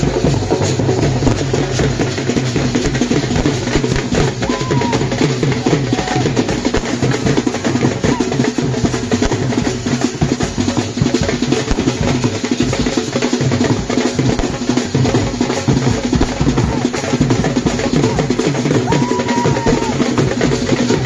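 Wedding brass band's bass drum and snare drums played loud in a fast, dense rhythm, with drum rolls.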